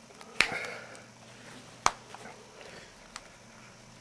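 Plastic housing of a Nokia 7373 mobile phone being pressed back together: two sharp snap-clicks about a second and a half apart, with some handling rustle after the first and a faint tick near the end, as the cover clips into place.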